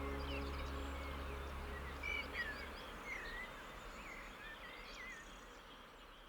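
Small birds calling in short, quick chirps over a soft outdoor hiss, the whole slowly fading out. A low drone from the end of the closing music dies away about three seconds in.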